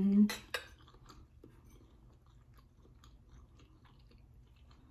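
A person eating a mouthful of yellow rice: a short hummed "mm" with the mouth full, then a few sharp mouth clicks and soft, faint chewing.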